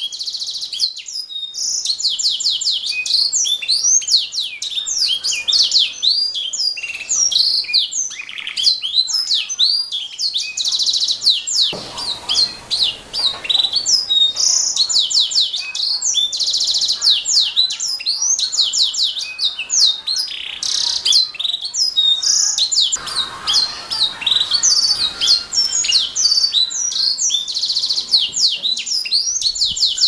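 Domestic canary singing a long, continuous song of fast, high-pitched trills and warbles, broken several times by very rapid buzzing rolls.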